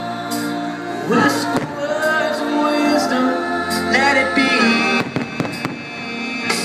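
Fireworks show soundtrack: loud music with held, sliding sung notes, broken by several sharp bangs of fireworks shells bursting overhead.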